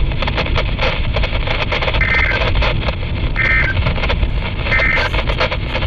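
NOAA Weather Radio EAS end-of-message signal: three short, buzzy digital data bursts about a second and a half apart, over loud, steady radio static. The bursts mark the close of the Required Weekly Test broadcast.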